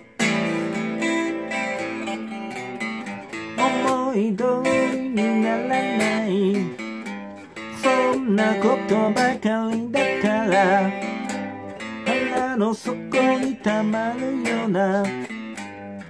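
Semi-hollow electric guitar strummed in chords, with a man singing over it from about three and a half seconds in.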